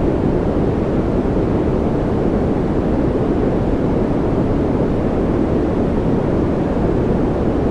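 Steady, unchanging white-noise track played for focus and calm, weighted toward the low end so that it sounds deep rather than hissy.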